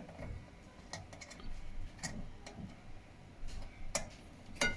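Multimeter test probes clicking against the terminals of a Kenmore dryer's thermal fuse: a few sharp ticks, with no continuity beep, the sign that the fuse is blown.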